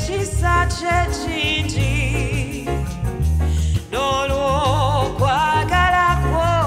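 Gospel worship music: a solo voice sings long, wavering runs with no clear words over a band with a heavy bass line.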